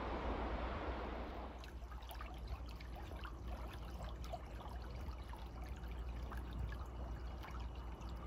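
A small stream trickling, with a patter of little splashes and drips. For the first second and a half a steady rushing noise is heard, which then stops.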